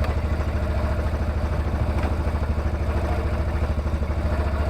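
Yamaha Rhino side-by-side's engine idling steadily with a fast, even low pulse.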